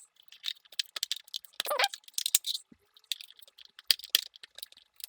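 Handling noises of small hard plastic parts: irregular light clicks, taps and scrapes as a drone body is turned over and a flathead screwdriver pries at a plug connector to release it, with one short scrape about a second and a half in.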